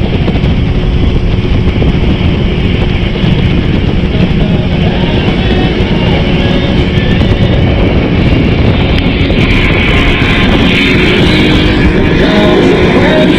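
A motorboat under way: a steady rumble of engine and wind on an action camera. A rock song plays underneath, its guitar coming up toward the end.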